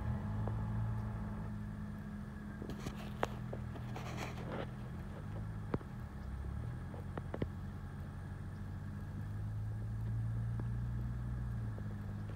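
A steady low engine hum, wavering a little in pitch, with a few short crunches of footsteps on dry fallen leaves about three and four seconds in.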